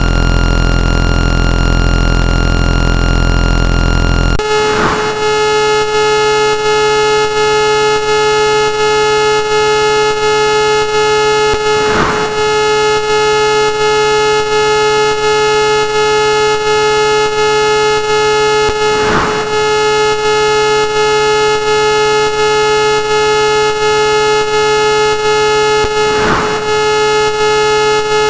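Loud, harsh layered electronic sound effects: a dense distorted noise with heavy bass that cuts off about four seconds in to a sustained blaring, horn-like drone, crossed by a short sweep roughly every seven seconds.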